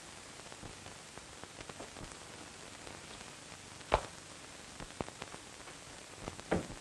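Steady hiss and crackle of an old film soundtrack, broken by a few sharp knocks: the loudest about four seconds in, two more about a second later, and one near the end.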